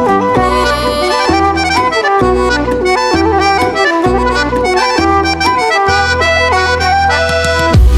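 Background music: an accordion-like melody over a steady bass beat, with a heavier bass coming in near the end.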